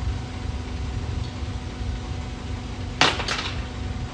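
Two sharp knocks about a third of a second apart, about three seconds in, from the IPS busbar tube clamp hardware being worked on. They sound over a steady low rumble and hum.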